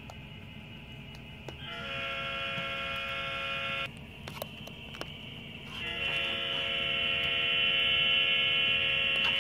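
Electronic buzzing tone from an HO model railroad's sound effects, a steady held tone that starts about two seconds in, breaks off near four seconds and comes back near six seconds, growing louder. A few light clicks sound in the gap.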